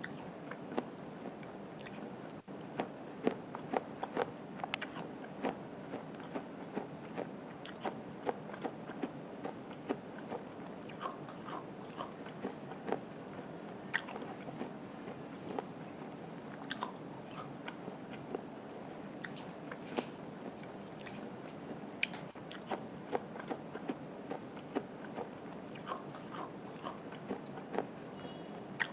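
Biting and chewing a small baked clay pot coated in multani mitti (Fuller's earth) paste: sharp, irregular crunches and snaps of the brittle clay, a few each second, over steady chewing.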